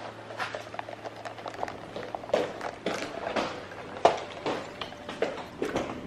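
Irregular knocks, clicks and rattles of someone rummaging through cabinets.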